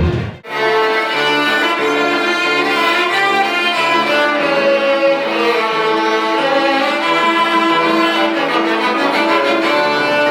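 Background music of bowed strings, violins and cellos playing slow, sustained notes; it starts about half a second in, after a brief gap.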